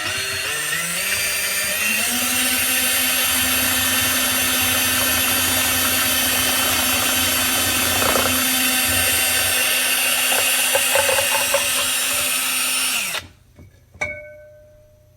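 Electric motor spinning up to speed with a rising whine, then running steadily, driving a 3D-printed Sabu disk replica. It is switched off abruptly about 13 seconds in. About a second later comes a sharp clink that rings briefly.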